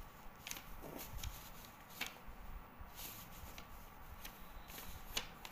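Faint handling noise: a few short, soft clicks and light rustles scattered over a low, steady room hum.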